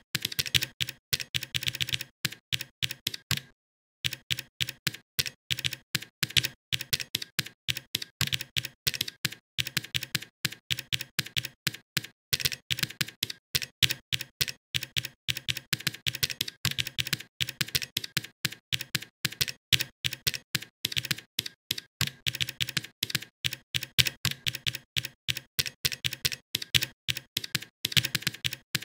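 Typing on a computer keyboard: a fast, uneven run of keystroke clicks, with a brief gap about three and a half seconds in.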